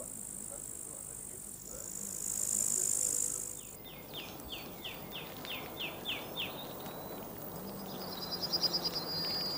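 Outdoor nature sounds: insects chirring in a steady high-pitched band that comes and goes, then a bird singing a run of about ten quick falling notes, and a fast high trill near the end.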